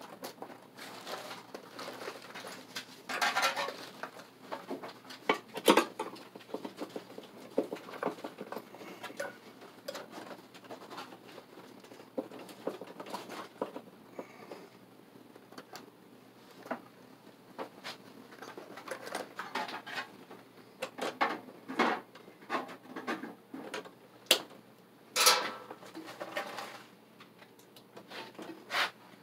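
Irregular scratching, rustling and clicks of stiff electrical wires being bent and worked by hand inside a metal breaker panel, with a few louder knocks scattered through.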